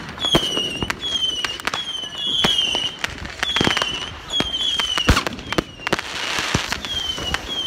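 Fireworks going off all around: many sharp bangs and pops at uneven intervals, with short whistles that fall slightly in pitch, about one a second.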